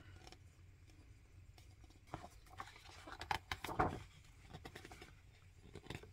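Paper rustling as the large glossy pages of a vinyl record's booklet are handled and turned, with a cluster of louder rustles about two to four seconds in.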